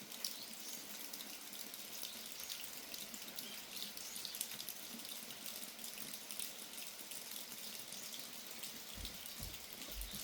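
Steady rain falling, a dense hiss of drops with many small ticks as they land and drip. A few dull low thuds come near the end.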